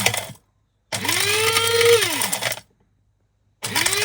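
Cheap electric blade coffee grinder pulsed in short bursts while grinding clumps of soil into fine dust. Its motor winds down just after the start, whines up again about a second in, runs for about a second and a half and winds down, then starts up once more near the end.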